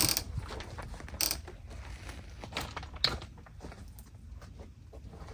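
Footsteps crunching and creaking in snow, irregular steps with sharper crunches about a second and three seconds in.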